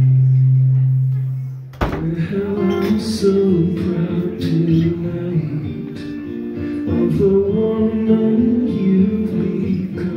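Live solo performance on a steel-string acoustic guitar with a man singing. A held low note fades away, then a hard strum about two seconds in starts a new strummed passage of changing chords.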